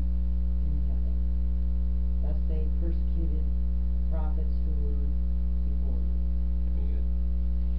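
Steady electrical mains hum: a low, unchanging drone with a ladder of higher overtones, picked up by the recording's audio chain. A few faint, brief murmurs come and go underneath.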